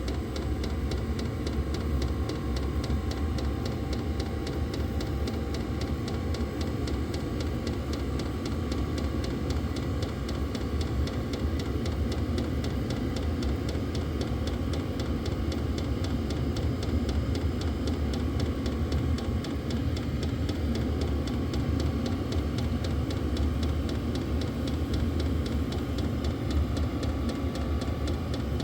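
Vevor diesel air heater running steadily on high after start-up: a constant fan and combustion rush with a faint steady whine, and a light, regular ticking from its fuel pump.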